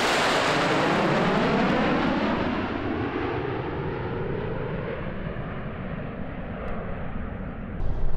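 Formation of jet fighters, the US Navy Blue Angels' F/A-18 Hornets, flying past overhead: a loud rushing jet noise whose pitch sweeps downward as they pass, then slowly fades. An abrupt cut to a different sound comes near the end.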